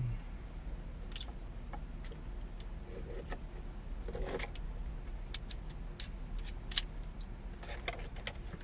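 Scattered light clicks and clatter of a screwdriver and small parts being handled, irregular and a few per second at most, over a steady low hum.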